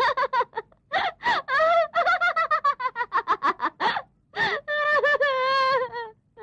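A woman laughing hysterically in rapid, closely spaced bursts, turning near the end into one long, slowly falling wail.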